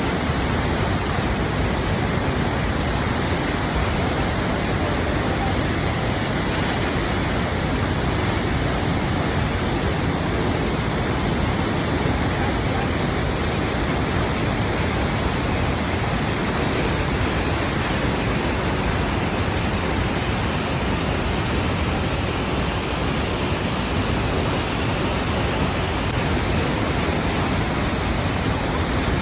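Steady rush of flowing water, a continuous even noise that holds level throughout.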